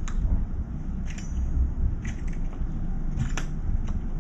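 A juvenile crow pecks at food in a metal feeder bowl: a few sharp, irregular clicks and cracks of its bill striking the bowl and crunching seeds and kibble. A low steady rumble runs underneath.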